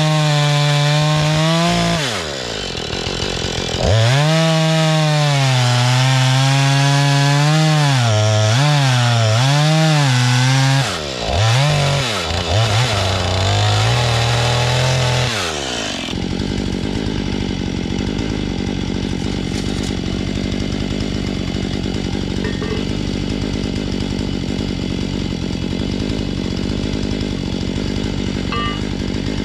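Husqvarna 435 two-stroke chainsaw cutting through rough-sawn boards at full throttle, its engine pitch sagging and climbing as the chain bites, with the throttle easing off twice. About sixteen seconds in, the cutting stops and a steady, lower engine idle carries on.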